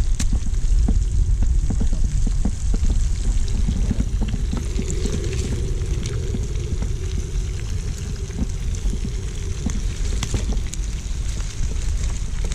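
Pieces of carp frying in hot oil in a pan over a campfire, sizzling steadily with many small crackles and pops.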